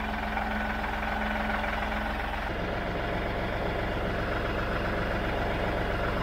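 Tractor engine idling steadily, its tone shifting slightly about two and a half seconds in.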